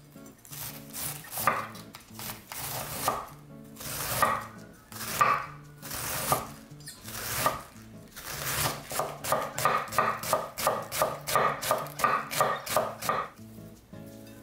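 Knife cutting cabbage on a cutting board. A few spaced-out cuts come first, then from about eight seconds in a quick, even run of about four cuts a second, which stops shortly before the end.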